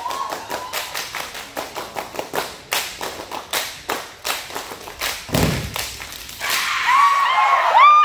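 Sasa dancers clapping and slapping in unison, sharp claps in a fast, even rhythm, with one deep thump about five seconds in. Near the end the group breaks into loud shouts that cut off together.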